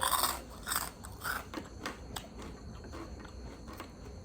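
Close-up eating sounds: chewing with scattered crisp crunches, the loudest bite right at the start.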